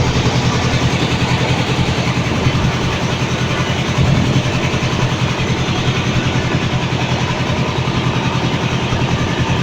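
Boat engine running steadily at a constant pitch, a low hum with a rushing noise over it.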